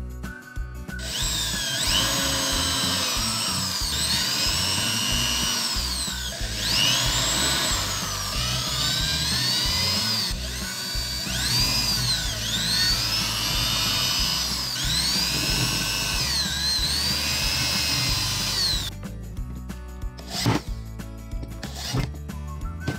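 Handheld power drill boring into a wooden jig block. The motor whine rises and falls over and over as the trigger is squeezed and eased, then stops about 19 seconds in, followed by a single sharp knock. Background music plays throughout.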